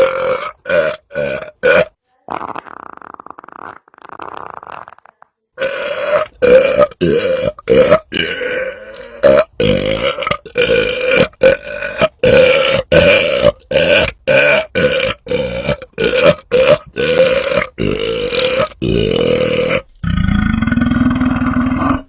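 A man belching over and over in short, quick belches at a steady pitch, about two to three a second. After a couple of seconds they give way to a few seconds of quieter, rasping sound, then the quick belches resume. A longer, lower belch comes near the end.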